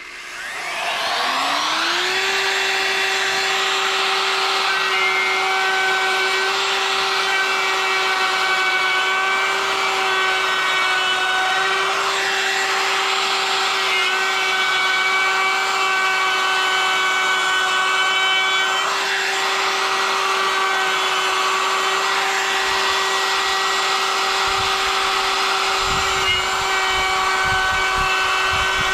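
Compact trim router starting up, its whine rising over about two seconds to full speed, then running steadily as its bit routes letters into a fir board, the cutting noise swelling now and then.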